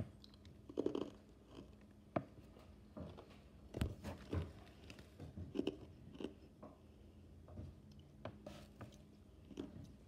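A child's mouth sounds made right at the microphone: irregular wet clicks, smacks and crunch-like crackles, about one or two a second, ASMR-style.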